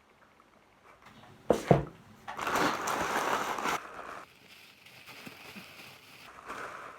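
Two quick knocks about a second and a half in, then crinkling and rustling of packaging being handled, loudest for a second or so and then quieter.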